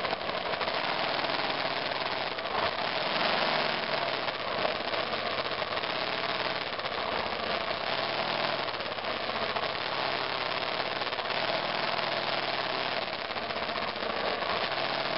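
2002 BMW F 650 GS Dakar's single-cylinder engine running under way on a rough trail, heard from a mirror-mounted camera. A steady rushing noise lies over the engine throughout.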